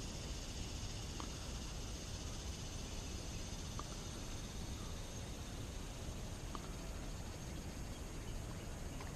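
Quiet outdoor ambience: a steady faint high hiss, with a faint short chirp about every two and a half seconds.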